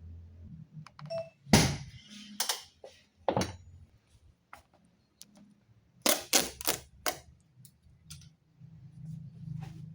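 A series of sharp plastic clicks and knocks, a loud one about a second and a half in and a quick cluster around six to seven seconds in, over a faint low hum.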